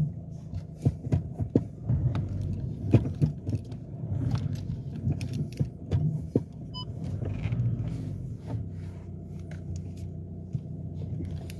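Volkswagen Golf engine idling at about 1000 rpm, heard from inside the cabin as a steady low hum, with scattered light clicks and rattles over it.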